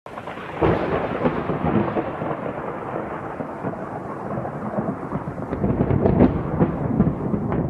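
Thunder sound effect: a rolling rumble with a louder crack about half a second in and swelling again near the end.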